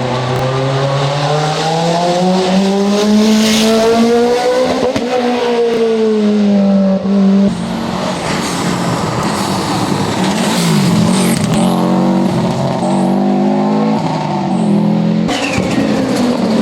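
Rally car engines at full throttle: one climbs in pitch for about five seconds under hard acceleration, then falls as the driver lifts. About halfway through, a second stretch of engine noise rises and drops repeatedly through the gears.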